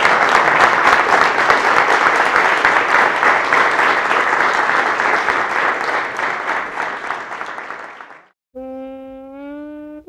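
Audience applauding, a dense clatter of many hands that fades out about eight seconds in. Then music begins: a melody of long held notes that slide upward.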